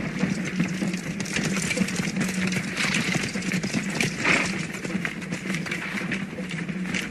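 A dense, irregular clatter of many hooves and feet from a body of mounted troops on the move, over a steady low hum.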